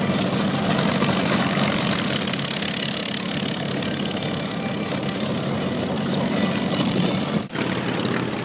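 Propeller aircraft engine running with a steady drone and a strong airy hiss. Near the end the sound breaks off for an instant and comes back duller.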